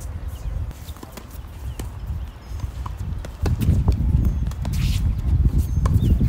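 Tennis balls struck by racquets and bouncing on a hard court during a net rally: a string of sharp pops about a second apart. A low rumble runs beneath, louder from about three and a half seconds in.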